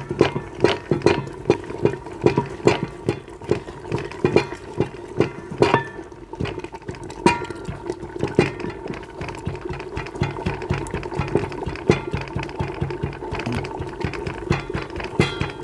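A long wooden stick pounding and churning boiled chana dal and bottle gourd in a metal pot, mashing it smooth: repeated wet thuds and knocks against the pot. They come about two a second at first, then lighter and quicker later on, over a steady hum.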